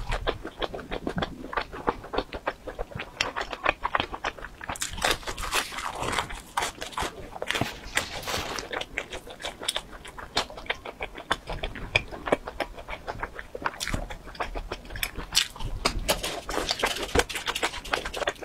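Close-miked chewing and biting of pizza: a steady, irregular run of small crunches and mouth clicks from the crust and toppings being eaten.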